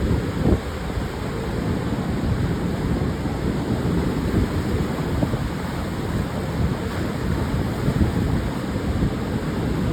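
Pacific surf washing onto a sandy beach in a steady, continuous rush, with wind buffeting the microphone in a low, gusty rumble.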